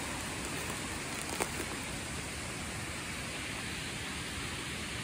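Steady rushing hiss of a nearby creek, with one brief click about a second and a half in.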